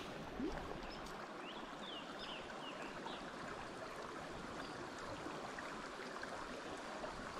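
Creek water running, a faint steady rush.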